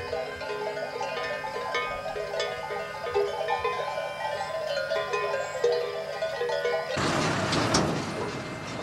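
A flock of sheep bleating, many short calls overlapping at varied pitches, with a few light clinks. About seven seconds in, this gives way abruptly to the steady rushing noise of a vehicle engine.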